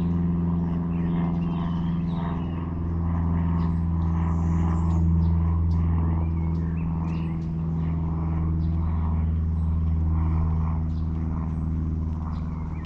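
Steady low hum of a motor running evenly, with a few short high chirps above it.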